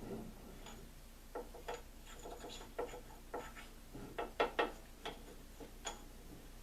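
Light metal clicks and scrapes of a steel center pin being slid into a Dana 35 differential carrier among its greased axle gears and thrust washers, in a few scattered clusters.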